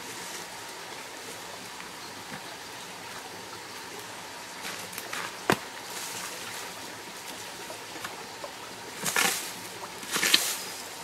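A stream running steadily over rocks, with one sharp knock about halfway and two short bursts of crackling rustle near the end as dry bamboo and grass litter is handled.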